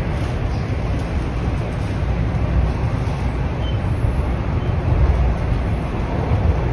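TTC Toronto Rocket subway train running through the tunnel, heard from inside the car: a steady, loud rumble of wheels on the rails with a deep low drone.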